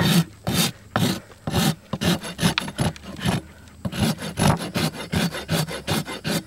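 Hoof rasp filing the bottom of a horse's hoof wall in quick, rhythmic scraping strokes, about three a second, with a short pause about three and a half seconds in. This is the levelling stage of a hoof trim, filing the wall flat after nipping.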